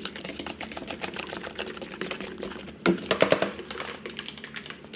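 Spoons stirring sticky slime in stainless-steel bowls: rapid clicking and scraping of the spoons against the metal bowls, with a louder run of strokes about three seconds in.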